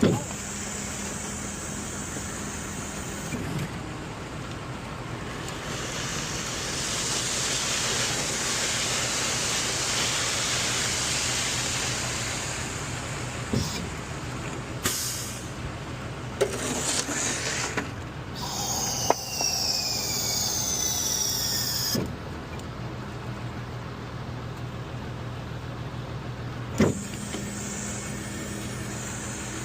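Concrete mixer truck running steadily during discharge, with a low engine hum throughout, a hiss that swells and fades over several seconds, and a few sharp knocks. Near the middle, a few seconds of falling whines.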